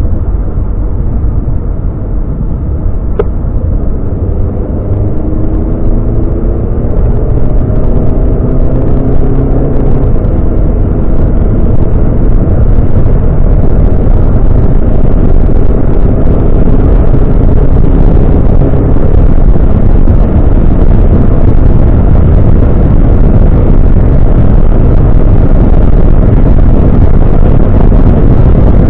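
Audi A3 8V saloon accelerating hard from 100 to over 200 km/h, heard from inside the cabin. The engine note rises under a loud rush of wind and road noise that grows over the first dozen seconds as the speed climbs, then holds steady.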